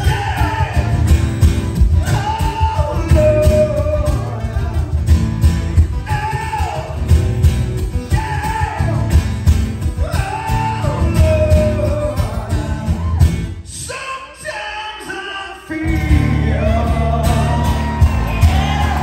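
Several acoustic guitars strumming a blues-rock song, played live, with a male lead vocal singing over them. About two-thirds of the way through, the guitars drop out for about two seconds, then the full band comes back in.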